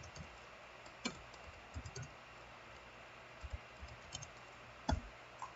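A few scattered clicks of a computer keyboard, single keys pressed about a second apart.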